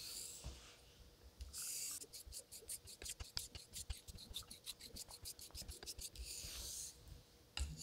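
Faint scraping swishes of a Vincent Intrépide straight razor honed in X strokes on a Japanese natural stone under a thin Asano nagura Koma slurry, with a quick run of short ticks in the middle.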